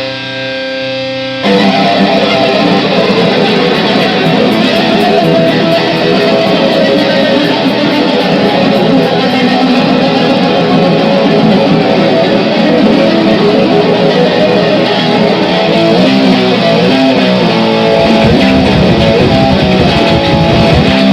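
Heavily distorted electric guitar in a grind-noise recording: a held, ringing chord for about a second and a half, then a sudden loud, dense wall of fast distorted strumming.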